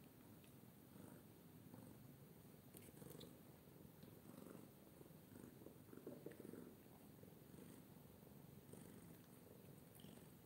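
Tabby cat purring faintly and steadily, with a few faint ticks.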